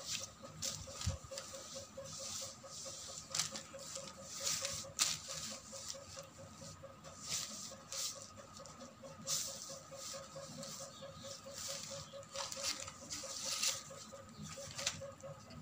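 A georgette dress and its clear plastic wrapping being handled: irregular rustling and crinkling, a dozen or so short swishes. Underneath runs a faint, steady, rapidly pulsing hum.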